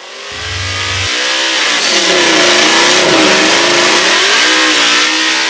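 Supercharged 5.0 V8 of a 2015 Mustang GT with long-tube headers and no muffler, held at high revs during a burnout. The revs waver up and down over a harsh, steady hiss from the spinning rear tyres. It builds over the first second and eases slightly near the end.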